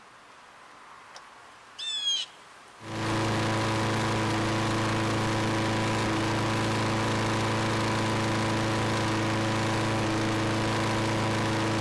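Briggs & Stratton 6.75 hp single-cylinder lawn mower engine running steadily at high speed, about 3300 RPM, while warming up. The engine comes in about three seconds in and holds one even pitch throughout.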